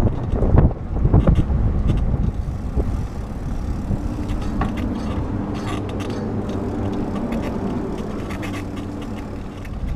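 Wind rushing over the microphone of a handlebar-mounted camera on a moving bicycle, gusting hardest in the first two seconds. A steady low engine hum sets in about four seconds in.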